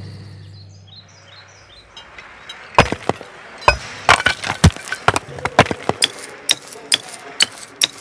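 Cartoon sound effects of sledgehammers and a chisel striking rock: a quick, irregular run of sharp clinks and cracks, several a second, starting about three seconds in.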